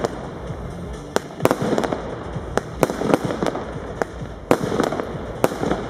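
Bon Fireworks 'Endeavour' firework cake firing its shots one after another, with a dozen or so sharp bangs at uneven intervals as the shells burst.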